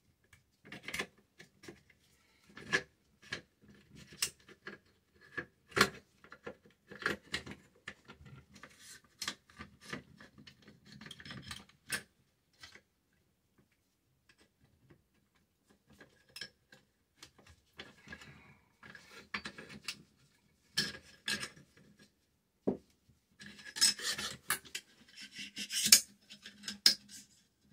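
AR-15 upper receiver parts handled during reassembly: irregular metal clicks and sliding scrapes as the bolt carrier and charging handle are worked into the receiver. A quiet spell falls about halfway through, and a quick run of clicks comes near the end.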